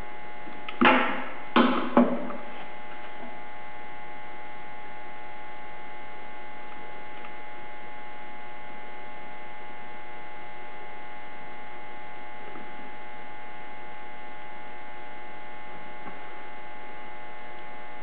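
Three short metal clicks in the first two seconds as a hand tool works against the housing of a Bridgeport mill's 2J variable-speed head while the back gear assembly is bolted in. After that only a steady electrical hum remains.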